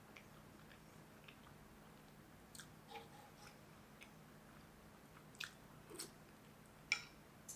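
Faint close-up eating sounds: quiet chewing with a few small, sharp mouth clicks and light taps, mostly in the second half, the sharpest near the end.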